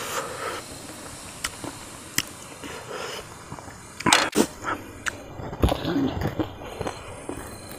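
Close-up eating sounds: irregular crunching and clicking of crispy burnt rice being chewed, louder about four seconds in and again around six seconds.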